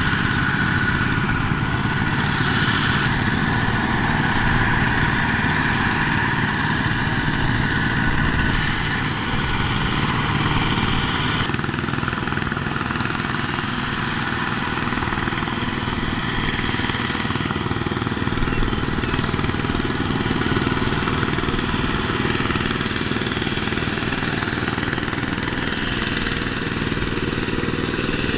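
Tractor diesel engine running steadily, its sound changing abruptly about eleven seconds in.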